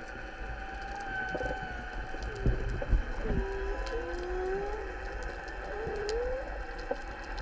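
Underwater sound: several wavering, sliding moan-like tones over a low rumble, with scattered sharp clicks.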